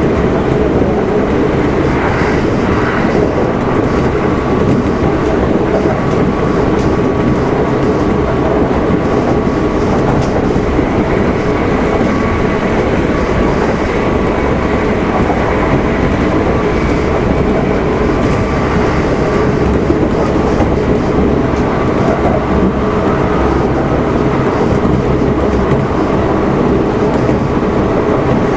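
Kintetsu 1259 series electric train, in motor car Mo 1268, running at steady speed: a constant loud rumble of wheels on rail with faint steady high tones over it.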